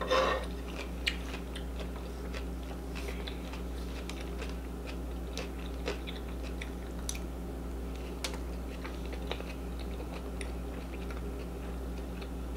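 Close-miked chewing of food, with scattered short clicks and smacks of mouth and spoon, over a steady low hum.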